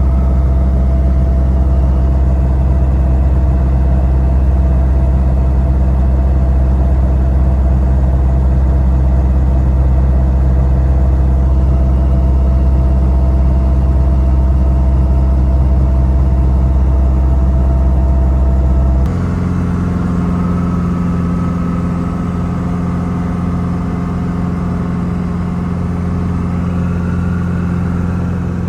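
Robinson R22 helicopter's piston engine and rotor running, a loud, steady, deep humming drone. About 19 seconds in, the drone abruptly shifts to a slightly quieter one with a different pitch.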